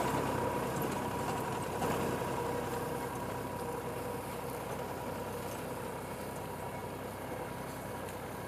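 Sonalika DI 35 tractor's three-cylinder diesel engine running steadily under load in low fourth gear, pulling a two-bottom reversible mouldboard plough through the soil. It grows slowly fainter.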